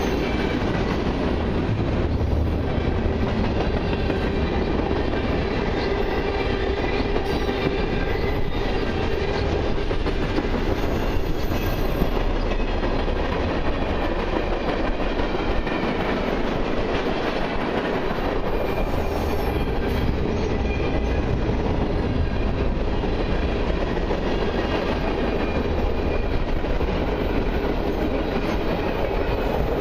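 Freight train cars rolling past at close range, tank cars and then autorack cars: a steady rolling noise of steel wheels on the rails, with a few faint knocks from the trucks.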